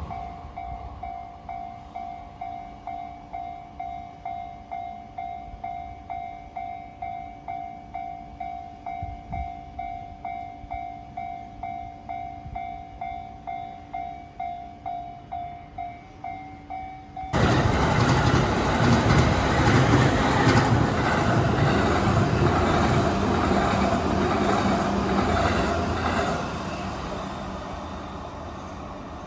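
Railroad crossing warning bell ringing in an even ding-ding of about two strokes a second. A little past halfway, a loud rush of train wheel and rail noise starts suddenly as a JR E259 series Narita Express passes over the crossing. It fades away near the end.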